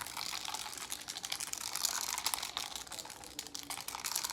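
Hands rubbing together after being sprayed with a liquid, a continuous fine crackling and swishing that stops just after the end.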